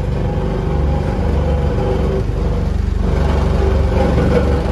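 Studio tour tram moving along, with a steady engine and road rumble heard from aboard.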